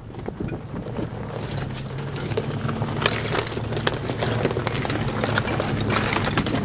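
Jeep Cherokee's 4.0-litre straight-six running at low revs while its tyres crunch and clack over loose flat stone slabs. The engine note steadies about a second and a half in.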